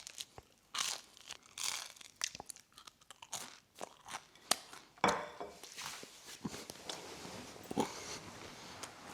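A person biting into and chewing a toasted ham and cheese focaccia sandwich, with repeated sharp crunches of the toasted bread.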